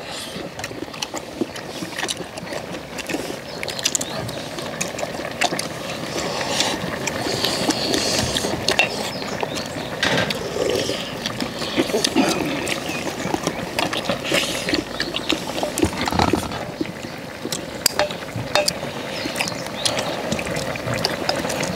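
Eating sounds of pork back-bone stew: chewing and sucking meat off pork bones, mixed with many small clicks of spoons and chopsticks against steel bowls.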